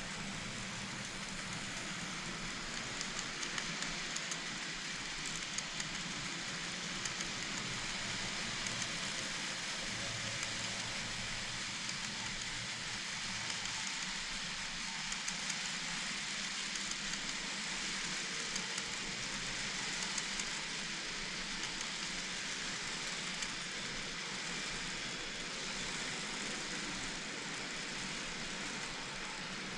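N-scale model train with Chiki 5500 long-rail wagons running on track: a steady rolling rush with scattered light clicks from the wheels.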